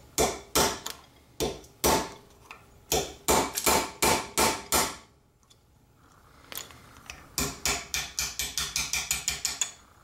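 Hammer striking a punch set against a milled-open aluminium padlock body clamped in a vise, to drive out the press-fit locking mechanism. About a dozen sharp metal strikes with a slight ring come over the first five seconds. After a pause, a quicker run of lighter taps comes near the end.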